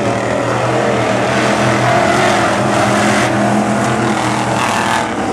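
Engines of a pack of dirt-track sportsman coupe race cars running together at racing speed, a steady, loud mix of engine notes.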